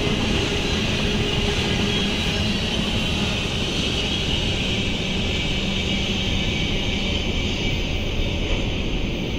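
Norfolk Southern manifest freight train's last cars rolling past on the rails, then a steady rumble that eases slightly as the train moves away.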